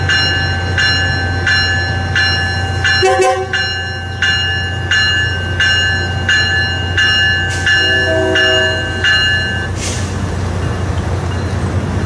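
Bell ringing steadily, about three strokes every two seconds, over the low steady hum of a Tri-Rail passenger train standing at the platform. The bell stops shortly before the end, and a short hiss follows.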